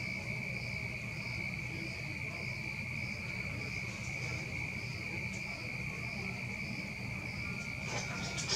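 Night insects calling: a steady high trill with a second, higher chirp repeating about twice a second, over a low rumble. A brief cluster of clicks comes near the end.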